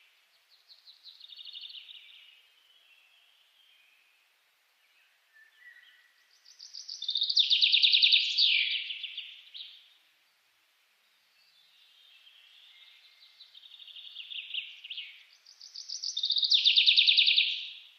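A songbird singing: repeated phrases of fast trilled notes, each swelling from soft to loud, with two loud bursts of song, one about halfway through and one near the end.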